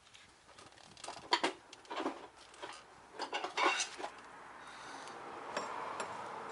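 Metal clinks and knocks of hand tools against the parking-brake shoes and their steel springs and retainers as they are worked loose, a cluster of sharp strikes in the first few seconds, then a steady hiss from about halfway through.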